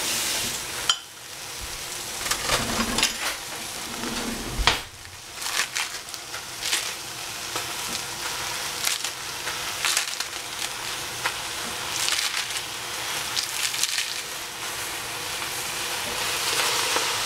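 Fresh lettuce leaves torn and snapped by hand into a stainless steel pot: many short crisp crackles over a steady hiss, with two sharper knocks, one about a second in and one near the five-second mark.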